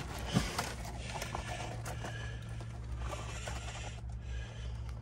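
Faint rustling and a few small clicks of someone handling the controls inside a vehicle's cab, over a steady low hum.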